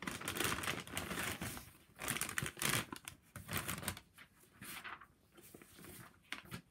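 Chick-fil-A paper takeout bag rustling and crinkling as food is pulled out of it by hand, loudest in the first three seconds and fainter after that.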